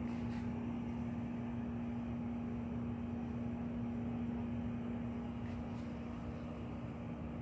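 Steady room hum: a constant low tone over an even hiss, unchanging throughout.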